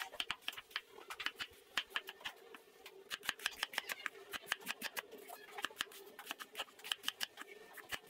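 Steel cleaver chopping a cabbage on a wooden chopping block, in quick irregular chops, several a second, with a faint steady hum beneath.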